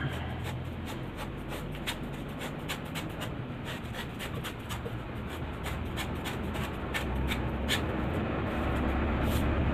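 Cotton cloth rustling and rubbing as a narrow fabric tube is bunched and pushed along a thin metal bicycle spoke to turn it inside out, with many small irregular scratchy clicks.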